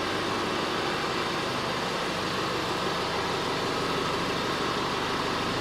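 Steady, even mechanical running noise, like an engine.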